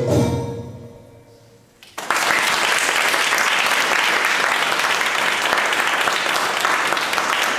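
The last note of Turkish belly-dance music dies away, then about two seconds in steady applause starts abruptly and carries on.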